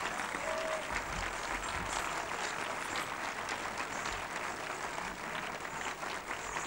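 Audience applauding: many hands clapping in a steady, dense wash.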